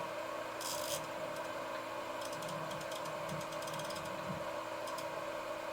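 DIY CNC router's axis motors moving the machine at a steady speed during tool touch-off, a steady hum with one held tone and scattered light clicks.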